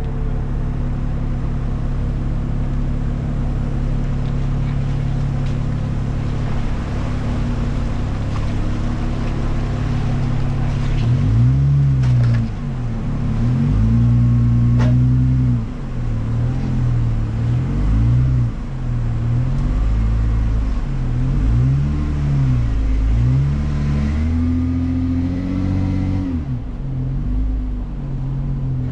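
Jeep engine idling steadily, then, from about eleven seconds in, revved up and down over and over as it crawls the vehicle over trail rocks.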